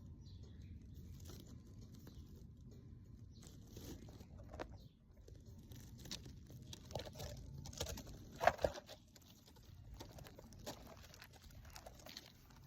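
A brush being drawn through a cat's fur: irregular scratchy rustling strokes, busier and louder in the second half, with the loudest stroke a little over halfway through.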